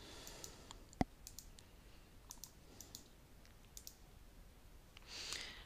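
Computer mouse buttons clicking faintly: one sharp click about a second in, then a few softer clicks.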